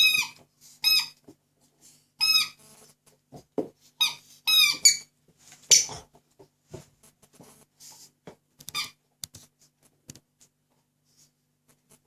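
Squeaky toy pig squeaking in short bursts as a dog chews it, about five squeaks in the first five seconds. Softer scattered clicks and knocks follow.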